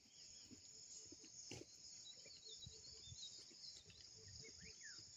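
Faint, steady high-pitched drone of insects, with a few faint bird chirps and soft low thumps.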